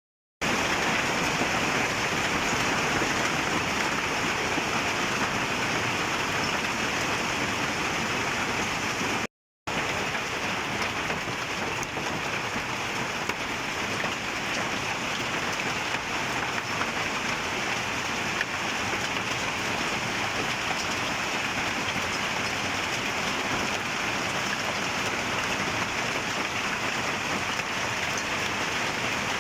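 Heavy rain mixed with hail falling and pattering on surfaces: a dense, steady hiss of countless small impacts. It drops out for a moment about nine seconds in, then carries on.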